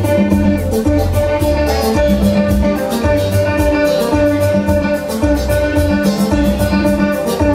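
Live music: an electric guitar played over a steady drum beat and a bass line.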